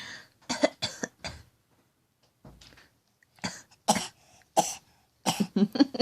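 A young child's put-on fake cough: short, breathy coughs, about three in the first second and a half, a few more spaced out, then a quick run of them near the end.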